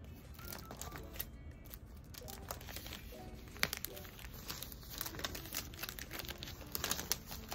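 Clear plastic sticker packets and binder sleeves crinkling as they are handled and pulled, with one sharp click about halfway through, over soft background music.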